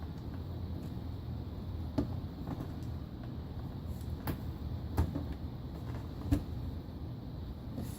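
A large cardboard box being handled and turned over: three dull knocks and a few lighter taps over a steady low hum.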